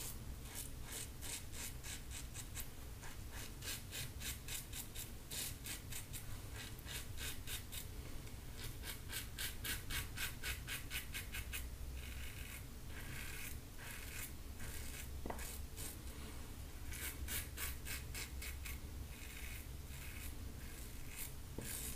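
A double-edge safety razor with a Rockwell blade scraping through lather and stubble on the neck, a faint crisp rasp of rapid short strokes coming in runs with brief pauses. It is a light-pressure pass against the grain.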